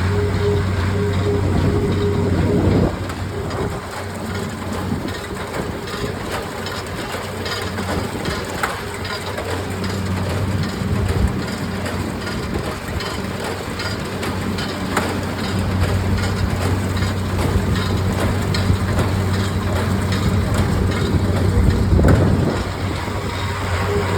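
Allis-Chalmers 180 tractor running steadily under load while pulling a New Holland 316 small square baler, with the baler's plunger and pickup crunching and packing hay over the engine's hum.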